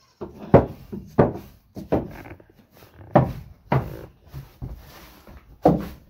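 A shovel knocking and scraping on the wooden floor of a goat stall as it is mucked out: about six irregular knocks and scrapes.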